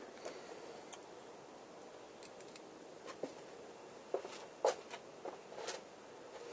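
A few faint, scattered clicks and taps of small bike parts and a grease container being handled, over quiet room tone.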